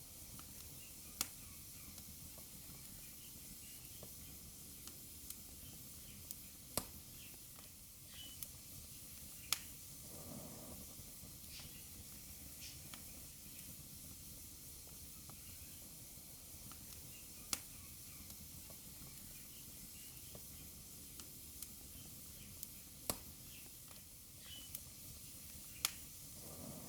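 Wood fire burning in a fireplace: a soft steady hiss with sharp crackles and pops at irregular intervals, about half a dozen of them louder than the rest.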